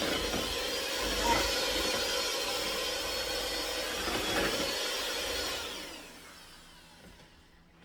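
Electric mixer running steadily as it beats the no-bake cheesecake filling until thick, then switched off and winding down about six seconds in.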